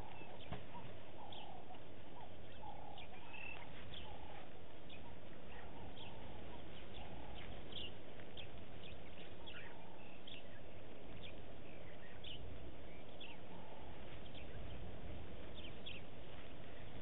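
Wild birds chirping, with short high calls scattered throughout and a few lower calls in the first few seconds, over a steady low background noise.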